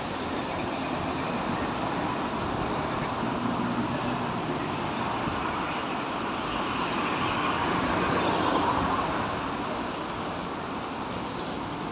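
Oedo Line subway train running, a steady rumble and rush of wheels on rail that swells about eight seconds in and then eases off.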